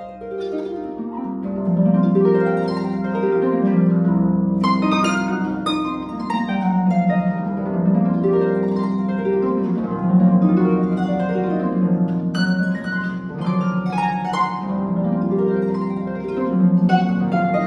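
Solo concert harp played: plucked notes and rolled chords ringing over one another, growing louder over the first two seconds.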